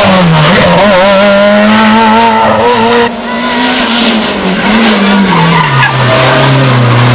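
Rally car engine running hard at high revs close by. The sound changes abruptly about three seconds in; near the end the engine note falls steadily, then climbs again.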